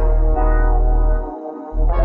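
Background music with a heavy, steady bass line; the bass drops out briefly about one and a half seconds in.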